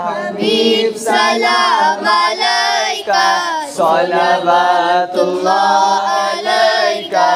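Unaccompanied male voice singing a devotional Urdu salam to the Prophet into a handheld microphone, in long, wavering held notes with ornamented pitch bends.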